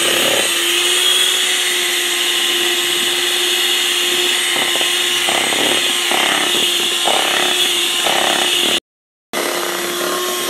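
Electric hand mixer running steadily with its beaters whirring through thick cupcake batter, a loud even motor whine. It drops out for a moment near the end and then runs on.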